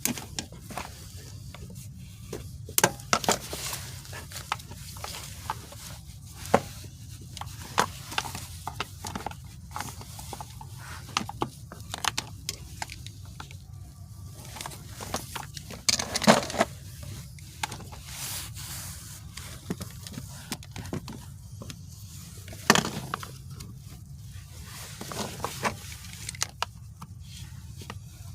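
Irregular sharp clicks, knocks and scrapes of hand tools and small parts being handled while a manual gear shifter assembly is taken apart, over a steady low hum.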